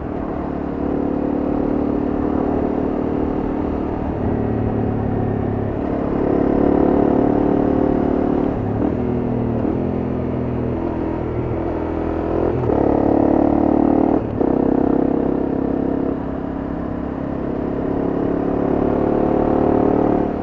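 Honda CRF250M's single-cylinder four-stroke engine running under way, its pitch stepping up and down as the engine speed changes, with a brief drop about 14 seconds in.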